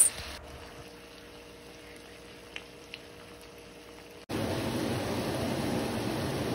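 Pot of brown stew chicken simmering, a steady bubbling that starts suddenly about four seconds in. Before it there is only a faint kitchen hum with two light clicks.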